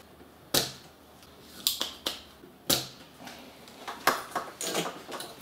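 Several sharp, separate clicks and light knocks from desoldering a micro-switch off a circuit board with a soldering iron and hand tool. The loudest click comes a little past halfway.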